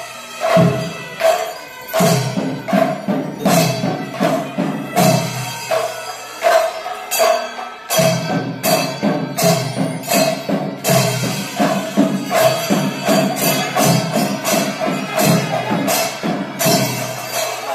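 Temple percussion ensemble playing: drum strokes in a steady, driving rhythm over a ringing metallic tone, typical of cymbals in a Kerala temple melam.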